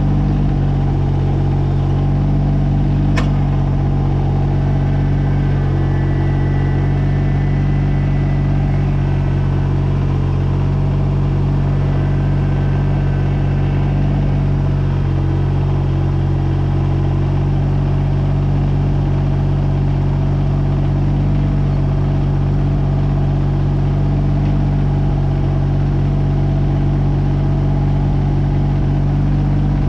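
Kubota BX22 compact tractor's three-cylinder diesel engine running steadily, with one sharp click about three seconds in and a faint higher whine between about six and fourteen seconds.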